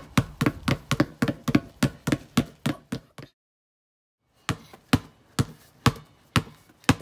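Two basketballs being dribbled on a concrete patio: bounces in a quick, even rhythm, about three a second, that stop about three seconds in. After about a second of silence the bouncing starts again at a slower beat, about two a second.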